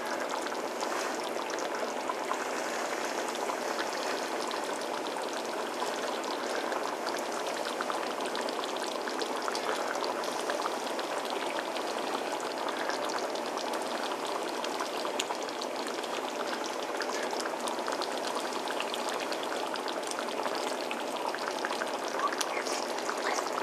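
A pot of chili simmering on the stove: steady bubbling with faint pops.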